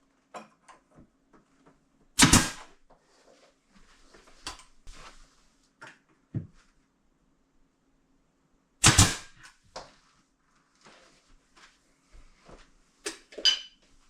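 Intermittent knocks and clatters of handling tools and timber during door-frame work. Two loud bangs stand out, about two seconds in and about nine seconds in, and there are a couple of sharper knocks near the end.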